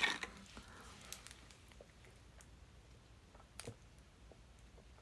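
Faint clicking and wet mouth noises from a person readying a burp: a few scattered small clicks, the clearest a little past halfway, over quiet room tone.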